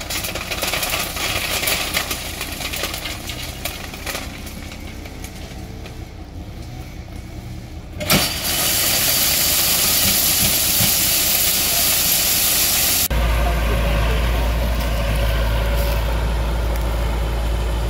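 Dump truck's engine running as the tipping bed rises. About eight seconds in, the load of crushed stone lets go all at once and pours out with a loud, sudden rushing. A heavy, steady low rumble follows.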